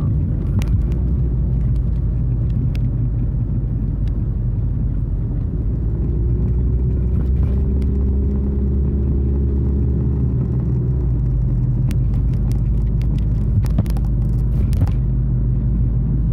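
Car driving on the road, heard from inside the cabin: a steady low rumble of engine and tyres, with an engine hum that swells for a few seconds in the middle.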